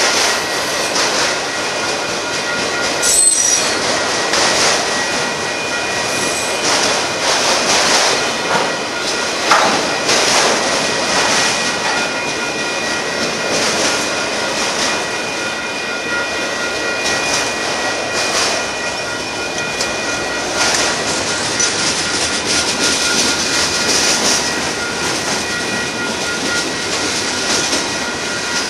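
Freight cars of a Union Pacific merchandise train, autoracks then boxcars, rolling past on steel wheels with a continuous rumble and irregular clacks over the rail joints. Steady high tones and an evenly repeating ding, the grade-crossing signal's bell, ring through it.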